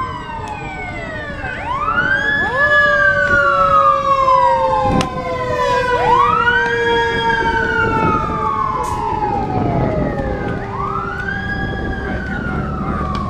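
Emergency vehicle siren wailing: three cycles, each sweeping up quickly and then gliding slowly down over about four seconds. A single sharp knock comes about five seconds in.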